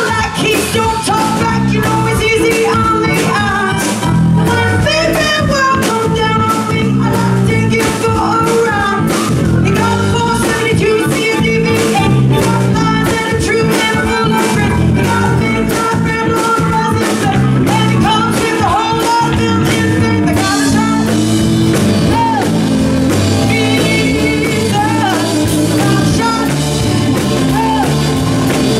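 Live rock song: a woman singing lead over electric guitar and a band with a steady drum beat.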